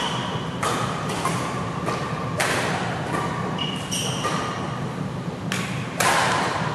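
Badminton rally: rackets hitting the shuttlecock, four sharp hits with the hardest overhead shot near the end, and short high squeaks of shoes on the court mat in between.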